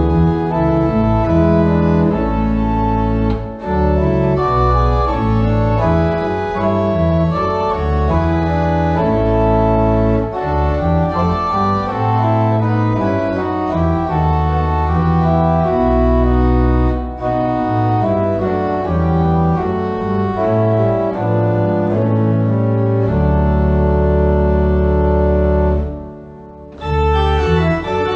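Organ playing sustained chords over a changing bass line, pausing briefly near the end before the playing resumes.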